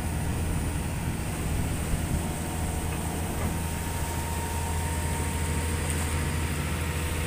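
Diesel engine of a Watermaster amphibious dredger running steadily at an even speed, a low drone that does not change.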